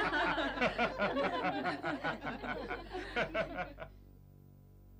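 Several people laughing and chuckling together in quick repeated bursts, the laughter dying away about four seconds in.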